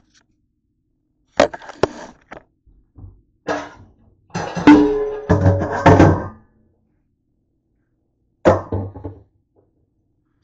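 Knocks and clatter from things being handled on a kitchen counter, in several short bursts. The loudest and busiest stretch is around the middle, with a brief ringing tone. One last knock comes near the end.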